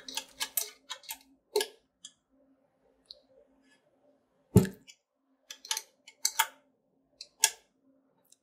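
Hex key turning a screw in a metal extruder bracket, with small metal parts clicking and ticking in irregular taps and one louder knock a little past halfway.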